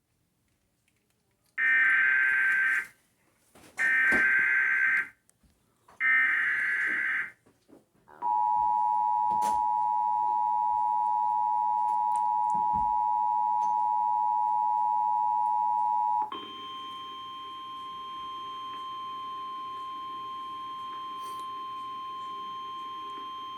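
Emergency Alert System broadcast tones. Three short bursts of the SAME digital header data come first. Then the two-tone attention signal (853 and 960 Hz sounding together) holds steady for about eight seconds, and it gives way to a quieter single steady 1050 Hz weather-alert tone.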